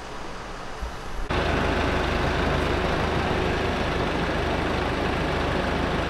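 A truck engine running steadily at idle, with a low even hum, starting suddenly about a second in after a quieter stretch of outdoor background.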